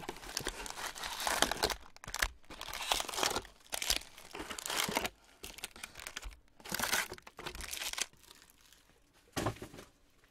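Crinkling and rustling of plastic wrap and foil trading-card packs handled in a cardboard box, in irregular bursts, quieter near the end.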